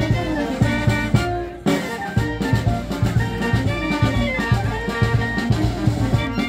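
Live band of brass and drums playing dance music over a steady drum beat, with a momentary break about one and a half seconds in.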